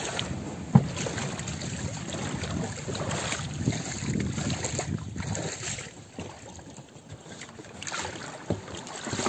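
Small boat being pushed off from the bank into the river: water sloshing and splashing around the hull, with scattered knocks against it and one sharp knock just under a second in. The sounds ease off after about six seconds.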